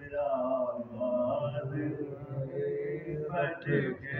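A man singing a Punjabi naat, a devotional Islamic song, in long drawn-out melodic notes.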